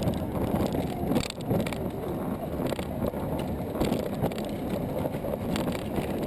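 A children's kart rolling over street pavement: a steady rattling rumble from the wheels and body, with frequent small clicks and knocks.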